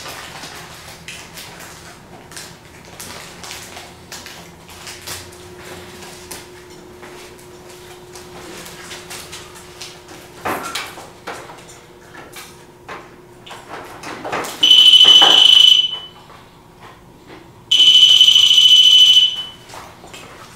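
An electronic alarm sounds two long, loud, high-pitched beeps of about a second and a half each, roughly three seconds apart. Small clicks and knocks come before them, with a sharper knock about halfway through.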